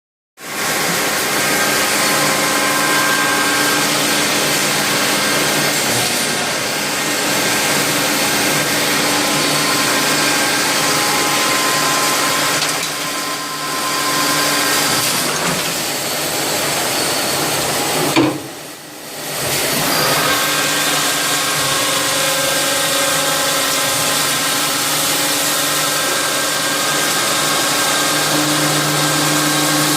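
Rayfeng 32 CNC lathe running a machining cycle: steady machine noise with several held tones. A sharp knock comes about two-thirds of the way through, then the noise drops away briefly and starts up again.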